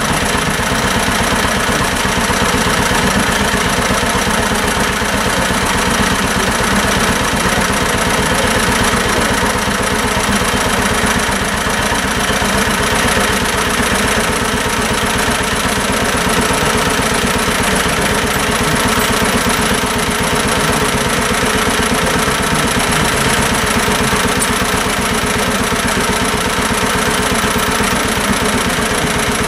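1949 John Deere BW tractor's two-cylinder engine running steadily with an even firing beat while powering the loader.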